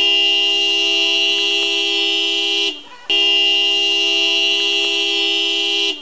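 Minivan horn sounded by a dog inside the van: two long, steady honks of nearly three seconds each, with a short break between.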